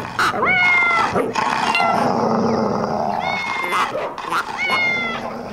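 Cartoon dog barking, about four drawn-out, howling barks spread across a few seconds.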